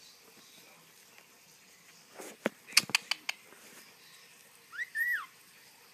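Pet musk lorikeet: a quick run of sharp clicks a little over two seconds in, then one short squeak near the end that rises and falls in pitch.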